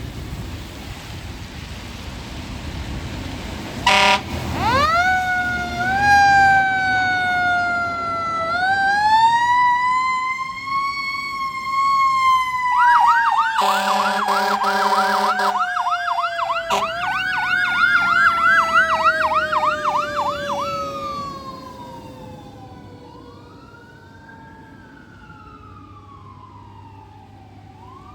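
Fire engine responding with its siren: a short horn blast about four seconds in, then a siren wailing up and down, switching to a fast yelp with a long horn blast in the middle. Near the end the siren winds down and fades, while a fainter siren keeps wailing.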